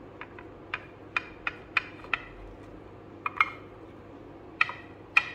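Chopped green bell pepper pieces dropped by hand into a stainless-steel mixer-grinder jar, each landing with a short metallic tap that rings briefly. There are about a dozen taps at uneven intervals, some in quick pairs.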